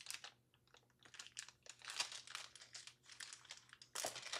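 Clear plastic bag crinkling in the hands while a short white cable is worked out of it, in irregular soft rustles that get louder near the end.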